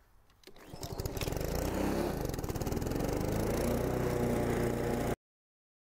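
Honda HRX217 push mower's single-cylinder petrol engine starting up about half a second in, then running steadily at speed. The sound cuts off suddenly near the end.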